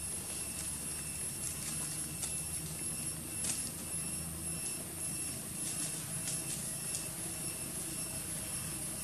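Steady low drone, like a distant engine or traffic, under a faint steady high whine, with a few light clicks scattered through.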